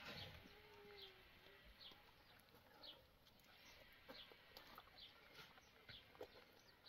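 Near silence, with a bird's short high chirp repeating faintly about once a second.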